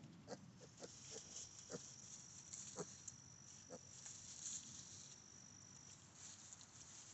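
Faint rustling of straw bedding as young piglets walk and root through it, with a few short soft sounds in the first few seconds. A thin steady high insect trill runs above it and stops about six seconds in.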